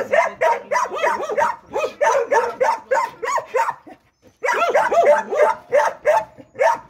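Caged dogs barking in quick succession, about three to four barks a second, with a short pause about four seconds in.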